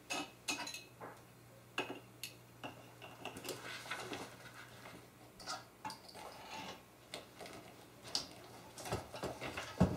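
Scattered soft clicks, taps and rustles at irregular intervals from a book and a pointer being handled, over a faint steady low hum.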